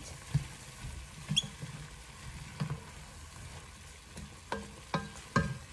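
Chopped onions, carrots, leeks and garlic sizzling as they sauté in oil in an enamelled pot, stirred with a wooden spoon that knocks and scrapes against the pot several times.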